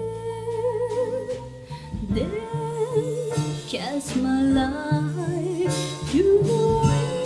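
Slow ballad music with guitar and bass, no words sung, carrying a held, wavering melody line.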